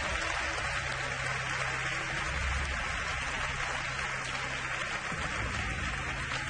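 Studio audience applauding steadily, with a low steady hum underneath.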